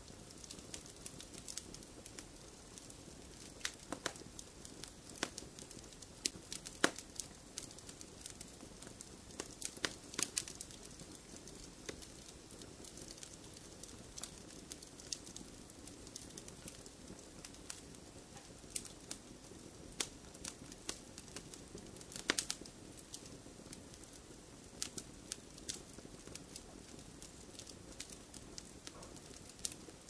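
Campfire burning: wood crackling with many sharp, irregular pops and snaps over a soft, steady rush of flame. A few louder snaps stand out now and then.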